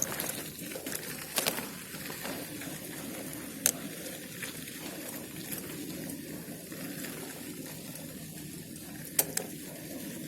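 Steady rushing noise of a bicycle ride, tyres rolling on the path and air over the microphone, with a few sharp clicks or knocks.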